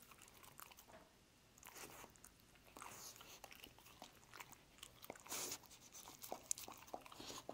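Dog crunching and chewing small pieces of peanut butter toast, faint, in short crackly spells with scattered clicks and a longer noisy burst about five and a half seconds in.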